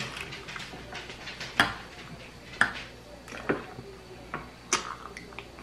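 Fork clicking against a plate four or five times during a meal, with quiet eating noises between the clicks.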